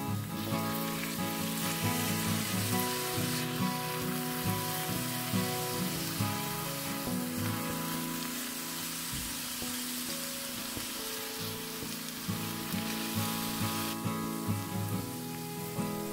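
Grated beetroot, carrot and onion sizzling in hot oil in a frying pan as a spatula stirs them together, over quiet background music.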